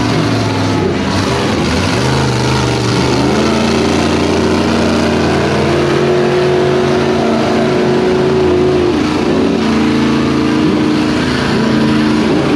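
Two lifted trucks' engines held at high revs, their pitches holding and then stepping up and down, with tires spinning in smoke as the trucks pull in a tug of war.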